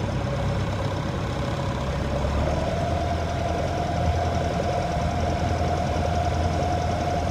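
A sailing ketch's engine running steadily under way with its sails still furled, a steady low rumble with a tone that rises slightly in pitch about two and a half seconds in.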